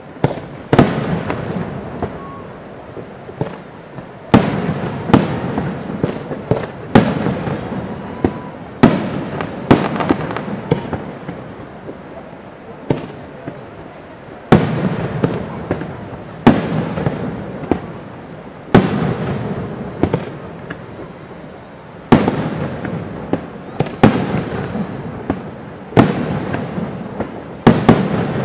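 Aerial firework shells bursting in quick succession: sharp booms every second or two, each trailing off in a rumble before the next.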